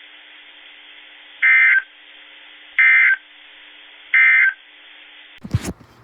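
Emergency Alert System end-of-message tones: three identical short warbling data bursts, evenly spaced about a second apart over a faint hiss, the digital code that closes a weather warning broadcast. A short loud crackle near the end.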